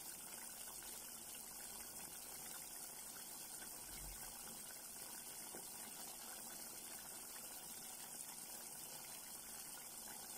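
Pot of coconut milk with string beans and chicken liver simmering, a faint steady bubbling.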